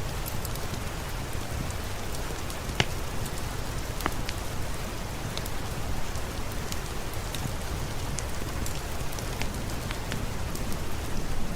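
Steady rain falling on a surface, a dense even hiss with scattered sharp clicks and pops; the loudest click comes about three seconds in.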